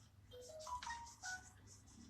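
A brief musical jingle: a quick run of short, clear notes stepping upward in pitch, played faintly.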